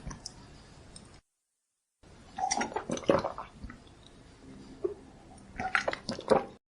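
A person drinking water from a glass: gulps and swallows with light clinks of the glass, in two clusters. The sound drops out completely for under a second about a second in, and cuts off just before the end.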